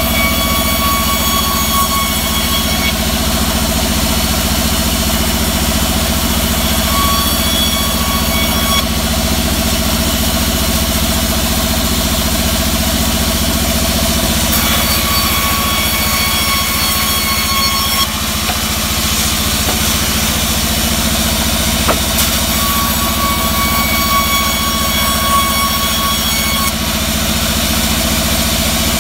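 Vertical band saw running with a steady low hum from its drive, as teak slabs are fed through it. A high, pitched blade whine rises over the hum four times, each spell a few seconds long, as the blade cuts through the wood.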